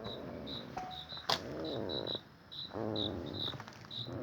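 Crickets chirping in a steady, quick pulse over a low, wavering groan-like sound that comes in two long stretches. The groan is the unexplained noise at the spot, which the people there liken to a person sleeping inside. A sharp click comes about a second in.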